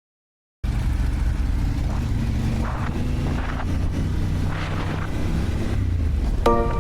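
Harley-Davidson Pan America 1250's V-twin engine running steadily, cutting in abruptly about half a second in.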